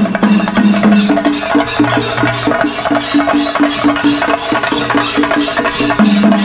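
A troupe of chende drums, cylindrical drums played with sticks, beating a fast, even rhythm, with a steady pitched tune sounding under the drumming.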